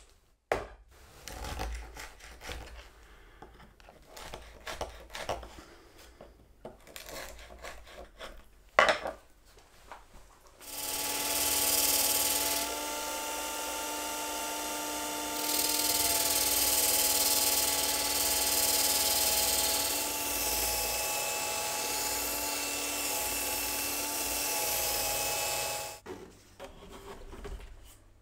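Light knocks and clicks of wood being handled, then an electric power tool starts and runs steadily for about fifteen seconds with a whine over a hiss that rises and falls in level a few times, and stops suddenly.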